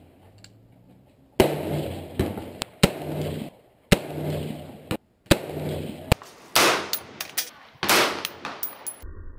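AR-15 rifle fired in single shots, roughly one a second, each crack followed by a ringing echo under the covered firing line. Some shots are cut off abruptly, and the sound stops suddenly near the end.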